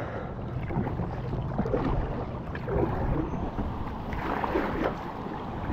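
Water splashing and lapping around an inflatable kayak as it is paddled along the river, with irregular short splashes from the paddle strokes.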